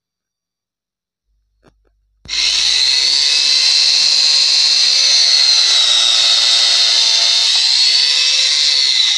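Wonder Cut angle grinder with a thin cutting disc cutting through an iron pipe. It is a loud, high whine that starts abruptly about two seconds in, and its pitch sags and recovers as the disc bites into the metal.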